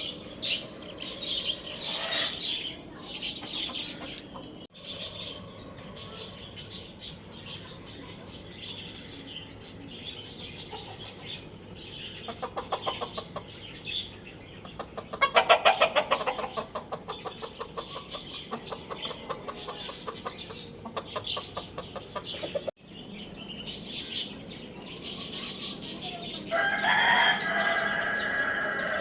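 Chickens clucking among chattering birds, with a rooster crowing once, long and drawn out, near the end.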